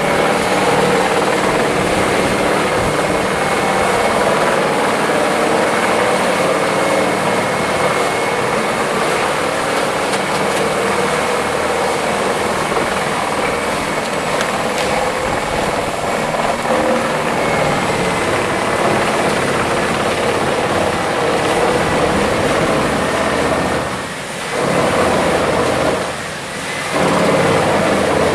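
A heavy machine's engine running steadily and loudly, dipping briefly twice near the end.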